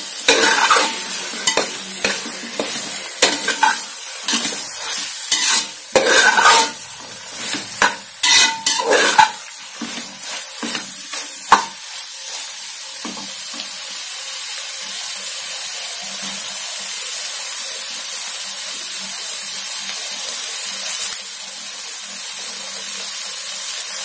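Metal spatula scraping and stirring prawn masala in an aluminium pressure cooker, over a steady sizzle of frying. The scraping strokes stop about halfway through, leaving only the sizzle.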